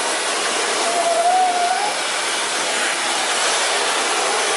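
Miele C3 Brilliant SGJA1 canister vacuum cleaner running steadily with its floor tool on the floor, a constant rushing of air from the motor, the suction strong enough to grip the tool to the floor.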